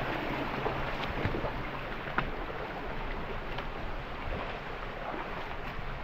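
Shallow rocky stream running steadily over stones, with a few faint clicks.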